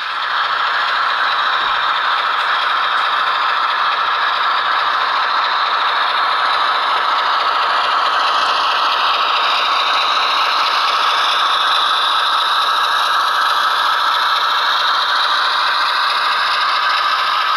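HO scale model train rolling along the track: a steady rattle and clatter of its wheels on the rails.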